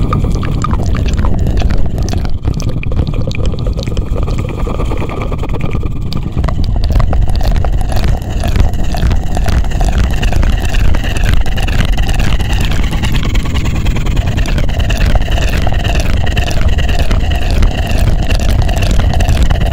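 Close-miked ASMR 'helicopter' trigger: a loud, rhythmic fluttering whoosh right on the microphone, pulsing a few times a second over a deep rumble. The pulses become more regular about six or seven seconds in.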